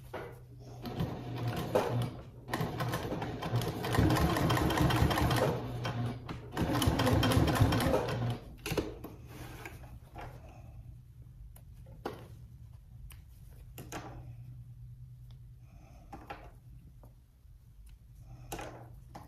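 Janome HD9 straight-stitch sewing machine stitching a seam through the layered bag fabric, in two runs with a brief pause between them, stopping about eight seconds in. After that come a few faint clicks as the threads are trimmed.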